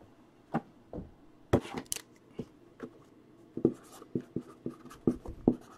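Marker writing on a cardboard box lid. A few scattered clicks and taps come first, then from about three and a half seconds in a quick run of short pen strokes, several a second.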